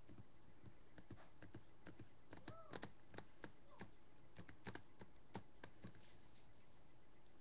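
Faint, irregular clicking of typing on a computer keyboard, busiest in the middle, with two short squeaks among the clicks.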